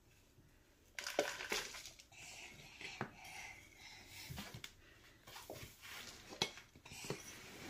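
Hand trowel scooping and scraping through loose potting mix in a plastic tub and tipping it into a plastic cup. Irregular gritty scrapes and sharp clicks of the trowel against the plastic start about a second in.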